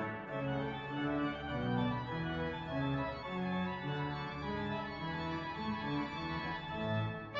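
Instrumental music played on an organ: held chords over a bass line that moves from note to note.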